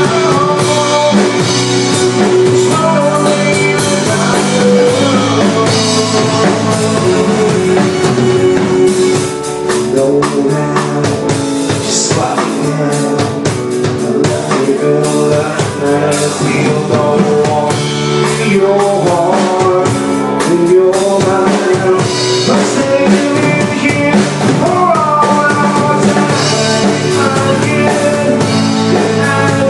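Live rock band playing a song: drum kit, electric guitar and keyboard, with a male voice singing over it at times.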